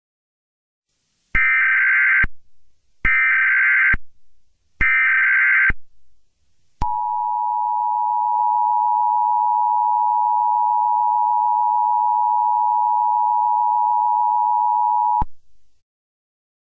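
Emergency Alert System tones: three harsh, screeching data bursts of about a second each (the SAME header that encodes the alert), then the steady two-tone EAS attention signal held for about eight seconds before cutting off suddenly. Together they announce an emergency broadcast message.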